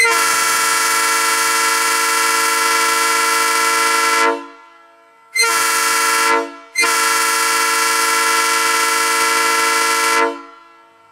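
Nathan Airchimes P3 train air horn sounding its multi-note chord in three blasts: a long one of about four seconds, a short one of about a second, then another long one of about three and a half seconds. It is blown on compressed air at about 105 psi, switched through a rebuilt rear-of-train brake valve.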